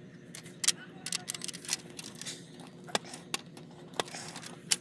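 About eight sharp clicks and taps of small hard objects at irregular intervals, the loudest about a second in and near the end, over a steady low hum.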